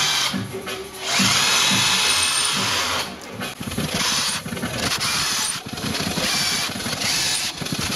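Hitachi cordless drill boring holes into a plywood cabinet panel, running in several bursts with short pauses between them.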